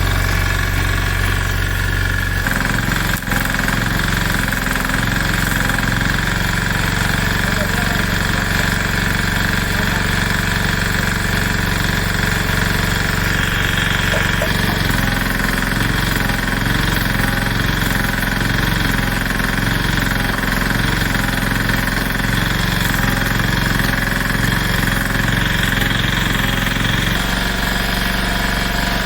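An engine running steadily, its pitch and tone shifting a few times, with a single sharp click about three seconds in.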